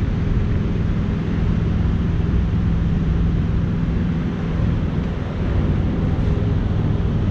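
Heavy diesel truck engine running steadily, a low hum with a broad rush of noise over it.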